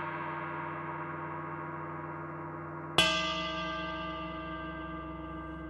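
Gong struck with the wooden handle of a mallet, bare wood on the metal. It gives a bright, clangy ring full of overtones. The ring from a strike just before carries on, and the gong is struck again about three seconds in and left to ring.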